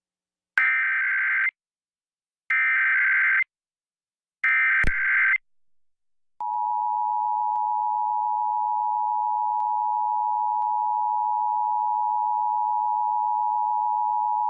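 Emergency Alert System broadcast test tones: three short warbling SAME header data bursts about two seconds apart, then, a second later, the steady two-tone EAS attention signal (853 and 960 Hz) held for about eight seconds.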